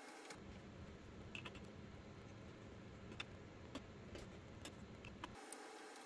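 Faint, scattered clicks and ticks of a small precision screwdriver on the screws and metal of a Sapphire Nitro+ 6900XT graphics card's stock cooler as it is being unscrewed.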